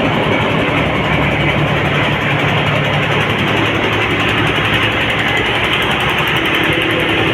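Engine running steadily at a constant speed: a low hum under a loud, even rush of noise, with no change in pitch.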